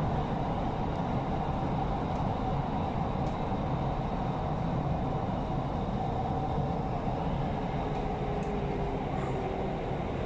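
Steady running noise inside a Doha Metro electric train car. A faint whine slides slowly down in pitch over the second half, as the train slows for a station.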